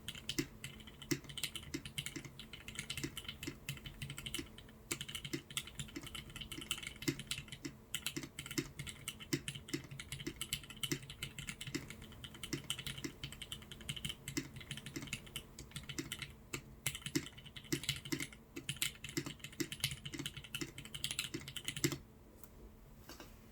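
Continuous typing on a TGR Jane V2 custom mechanical keyboard with lubed vintage Cherry MX Black linear switches on 55 g springs, a steady run of keystrokes that stops about a second and a half before the end.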